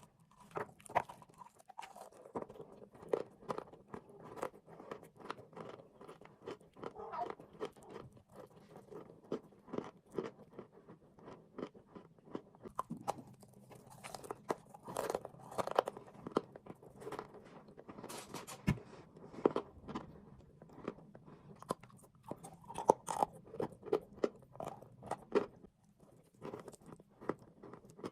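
A person biting into and chewing a hard, crunchy edible mineral, with a rapid run of sharp cracks and crackles as it breaks up between the teeth. The crunching pauses briefly near the end.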